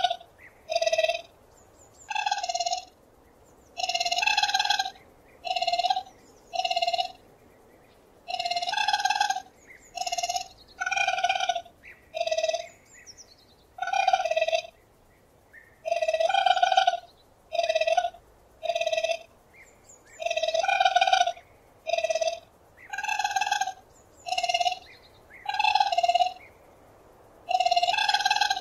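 Raccoon giving short, bird-like cries, repeated roughly once a second at uneven spacing.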